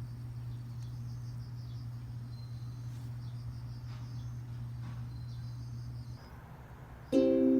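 Insects chirping in short, repeated high trills over a steady low hum. The hum cuts out about six seconds in, and music with chiming notes starts just before the end.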